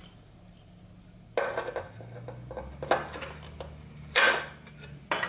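Hand pliers clicking and clinking against metal parts while working a rubber fuel line near an outboard motor's carburettor: a few sharp clicks and clatters after a quiet first second or so, the loudest about four seconds in.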